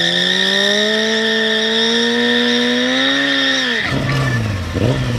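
Honda FireBlade SC28's inline-four engine held at high revs while the rear tyre squeals in a burnout, the pitch creeping slowly up. About four seconds in the revs drop suddenly, and near the end the throttle is blipped once.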